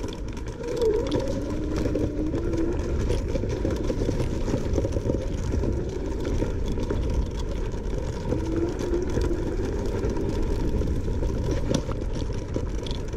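Langfeite L8S electric scooter ridden fast over rough off-road ground: a steady low rumble of the ride and wind, with a motor whine that rises and falls with speed.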